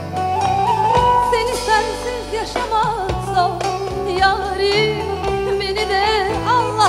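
A woman singing a Turkish song into a microphone over instrumental backing, her voice wavering in ornamented turns.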